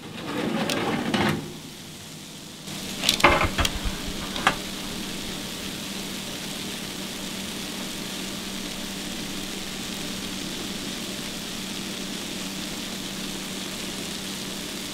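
Freshly baked sausage balls sizzling steadily in their rendered grease on a parchment-lined baking tray. In the first few seconds there are a few knocks and clatters as the tray is pulled out of the countertop oven and set down.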